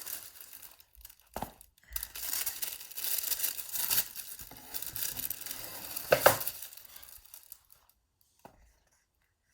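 Packaging being torn and crinkled as a box of shoes is unpacked, with a few sharp knocks among the rustling; it stops about two-thirds of the way through.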